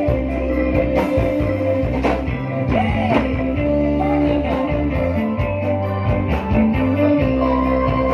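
Live dangdut koplo band playing: electric guitars, bass and keyboard over a steady beat, with a singer's voice.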